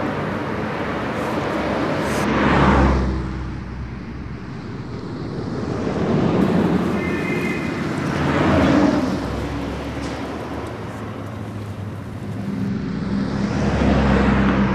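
Car driving: steady engine and road rumble that swells and fades three times, about every five to six seconds.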